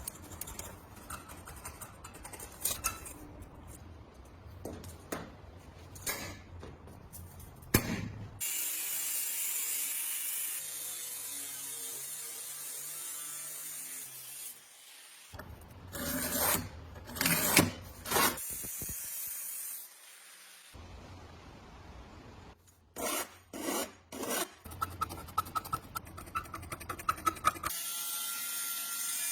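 Hand-tool scraping and rubbing strokes on parts being restored, in several short cut-together stretches. One stretch holds a steady hiss, and a quick run of ticks comes near the end.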